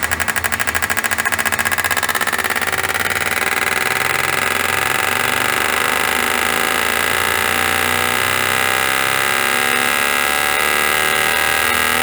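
Fuel injectors firing on an injector test bench during a flow test before cleaning: rapid clicking pulses that quicken over the first few seconds and merge into a steady buzz.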